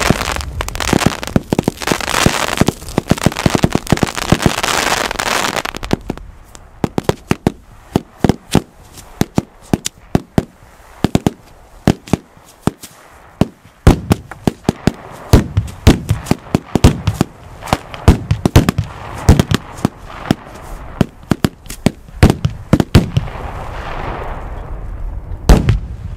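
Fireworks going off: dense crackling for about the first six seconds, then a long, irregular run of sharp bangs, several a second at times, with crackling between them.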